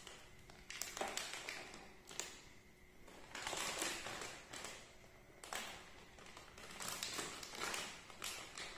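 Plastic snack packet crinkling and rustling in someone's hands, in irregular bursts of a second or so.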